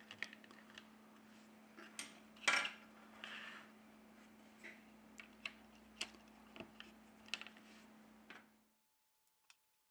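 Light clicks and taps of small plastic parts being handled as a smartphone's plastic motherboard cover is picked up and pressed back onto the frame, the loudest tap about two and a half seconds in. A low steady hum underneath cuts off near the end, leaving near silence.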